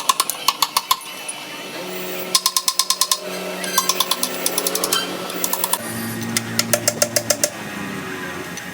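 Rapid hammer blows on metal, in about five quick runs of several strikes a second, each strike ringing briefly. A steady low hum runs underneath from about two seconds in.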